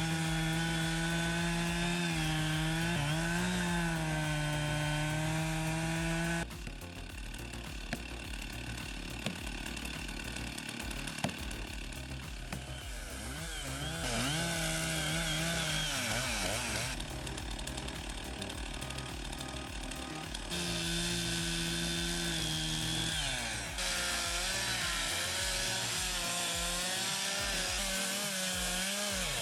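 Two-stroke chainsaw running at high speed and cutting wood, its engine pitch dipping and rising under load. The sound changes abruptly several times.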